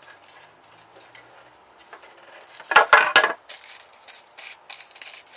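Metal parts and tools clinking against each other while an electronic device is taken apart by hand, with light handling clicks and a brief cluster of loud metallic clatters about halfway through.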